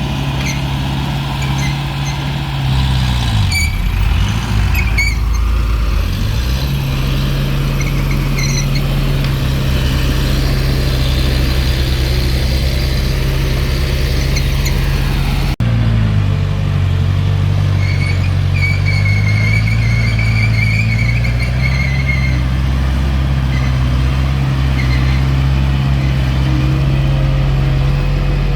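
Diesel engine of heavy earthmoving equipment running hard, its pitch sagging and recovering twice as it takes load. A high wavering squeal rises over it about two-thirds of the way through.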